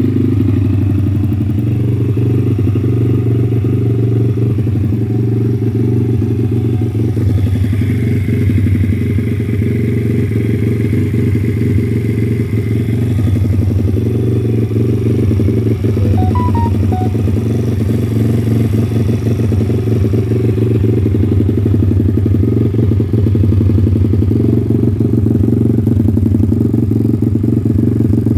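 140cc pit bike's single-cylinder four-stroke engine, fitted with a Z40 cam, idling steadily.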